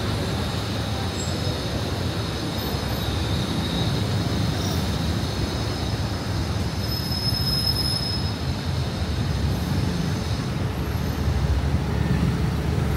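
BTS Skytrain passing on its elevated track with a steady rumble and a high wheel squeal. The squeal comes in a couple of seconds in, is loudest past the middle and fades out near the end.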